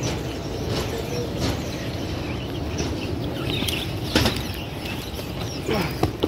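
Airport baggage carousel running: a steady mechanical rumble with a few sharp metallic clacks, the loudest about four seconds in and a cluster near the end.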